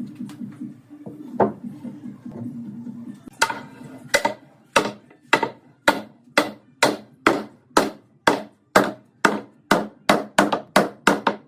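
Hammer striking wood: a run of about eighteen sharp blows that start a few seconds in and get faster toward the end, after a low steady hum with a single knock.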